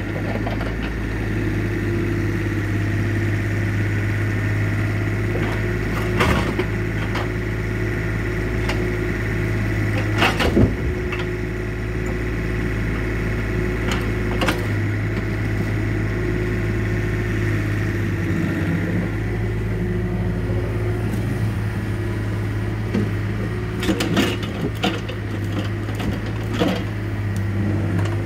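Yanmar mini excavator's diesel engine running steadily under hydraulic load as the boom and grapple work, with a steady whine riding over the hum. Several sharp knocks and clunks stand out, around six and ten seconds in and again near the end.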